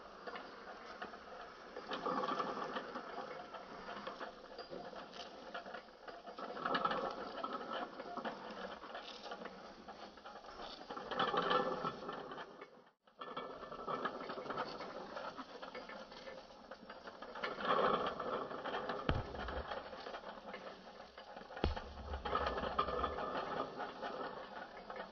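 A toy rolling-road test stand's small electric motor and rubber belt running, with the die-cast model truck's wheels turning on the belt. It gives a steady mechanical whirr that grows louder and softer every few seconds and cuts out for a moment about halfway.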